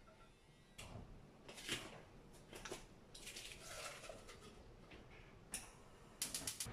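Quiet kitchen handling sounds: a few light clicks and knocks, with a rustle from about three seconds in and a quick run of clicks near the end.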